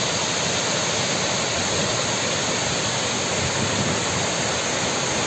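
Mountain waterfall cascading over rocks: a steady rush of water.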